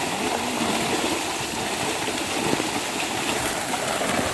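Steady splashing and churning of water from fish thrashing in a seine net drawn in close, with scattered sharper splashes.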